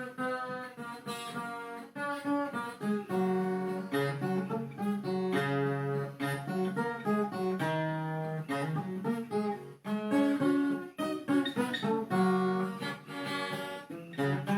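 Viola caipira, the Brazilian ten-string folk guitar, playing an instrumental solo: a plucked melody in short phrases, with brief breaks about two seconds in and again near ten seconds.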